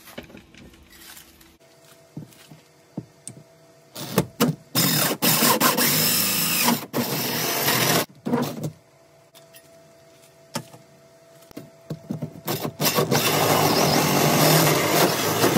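Power drill with a hole saw cutting through the shed's wall siding. It runs in a first long burst about four seconds in, a short burst near eight seconds, and a second long run near the end.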